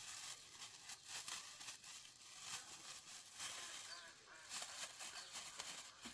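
Thin plastic bag crinkling and rustling in irregular crackles as it is handled and opened.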